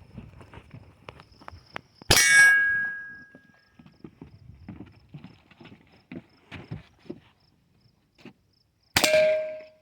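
Two revolver shots from a Smith & Wesson M&P, each answered by a steel target ringing with a clear metallic tone. The first comes about two seconds in and the second near the end. Faint small clicks and ticks fall between them.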